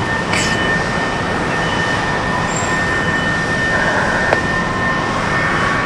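Boeing 747-400's four turbofan engines running at taxi power: a steady rush with a constant high whine. A brief click about four seconds in.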